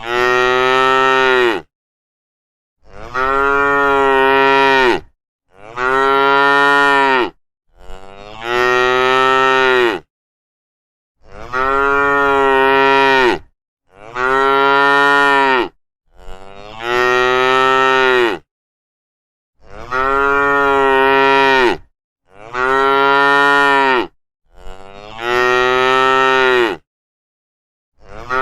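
Cattle mooing: a series of about ten long moos, each about two seconds, one after another with short silent gaps between them.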